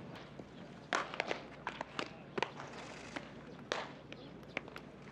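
Baseballs popping into leather gloves as several players throw and catch, a dozen or so sharp smacks at irregular intervals, the loudest about a second in and near the four-second mark.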